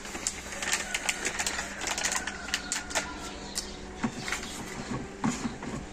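Crinkling and small sharp clicks of a pesticide powder sachet and the plastic backpack sprayer's lid being handled, with a bird calling faintly in the background.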